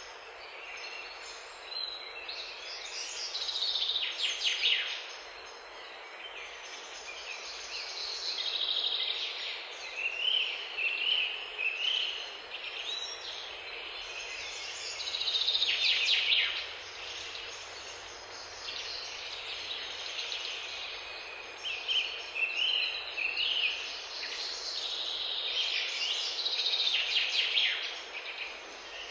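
Songbirds singing: bright chirping and trilling phrases that come and go every few seconds over a steady background hiss.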